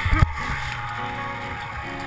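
Arctic Cat M800 snowmobile's two-stroke engine noise dropping away as the sled tips over in deep snow, with a few loud thumps right at the start. Background music underneath.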